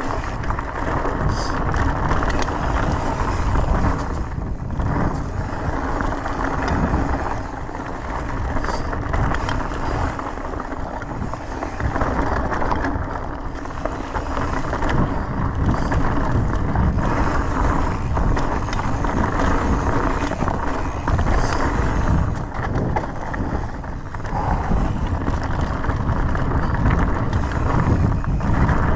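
Mountain bike riding fast over a stony dirt trail: tyres crunching and rumbling over gravel, with the bike rattling and knocking over bumps throughout.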